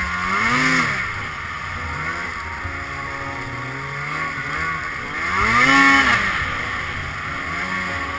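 2012 Arctic Cat M800's two-stroke engine running under the rider, revving twice with the pitch rising and falling: once just under a second in, and again, louder, about five seconds later.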